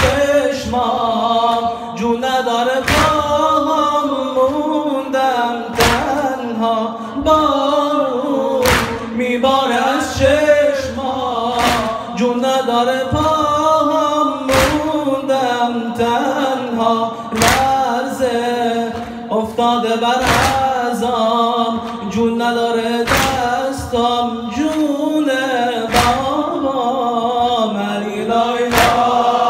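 Farsi noha, a Shia mourning lament: a man sings the slow melody into a microphone, with other voices chanting along, over a loud thump about every three seconds that keeps the beat.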